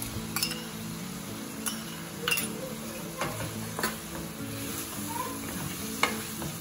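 Mutton pieces with onions and spices sizzling and frying in a kadai as yogurt is stirred in with a wooden spatula. A few sharp clicks of the utensils knocking against the pan.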